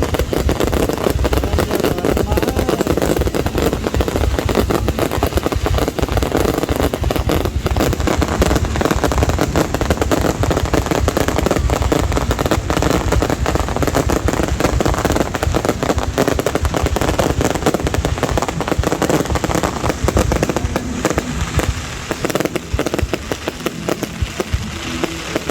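Fireworks display: a dense, continuous barrage of rapid bangs and crackling, thinning a little near the end.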